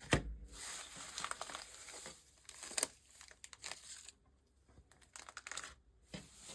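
Rustling and crinkling of shredded paper packing filler as hands rummage through it, with a few sharper crackles; it falls quiet for a moment past the middle.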